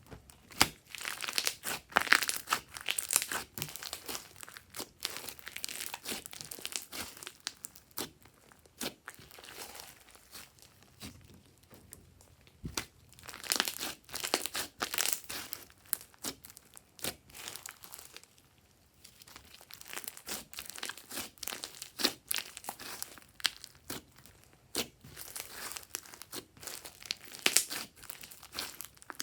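Glossy slime being squished and stretched by hand: a dense run of small sticky clicks and pops in bursts, twice falling quieter for a moment.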